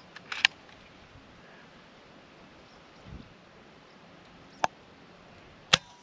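FX Wildcat MKIII bullpup PCP air rifle being cycled and fired. A quick cluster of sharp side-lever clicks comes at the start, then near the end two sharp cracks about a second apart, the second the loudest.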